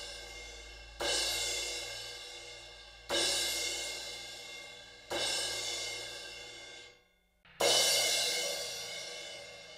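A drum-kit cymbal struck four times, about once every two seconds, ringing out and fading between hits. It is a raw recording with no EQ, through Shure PG series drum mics with an SM57. After a brief drop-out near the end, the last strike comes through Audix DP7 drum mics.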